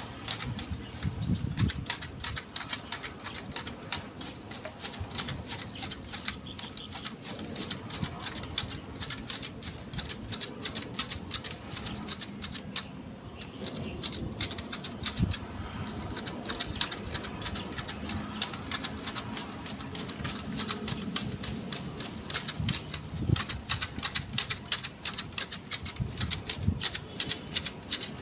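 Manual hedge shears snipping through a Fukien tea hedge: a fast run of crisp clicks as the blades close, several a second, with a short pause about halfway through.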